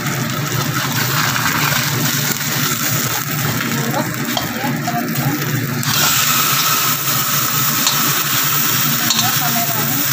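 A fish steak frying in oil in a stainless steel wok with a steady sizzle. About six seconds in, the sizzle turns hissier and a little louder as the browned side of the fish comes up.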